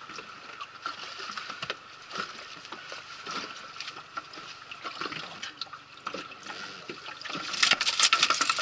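Water splashing and dripping in an inflatable boat, with scattered small knocks. Near the end it builds into a louder run of splashing.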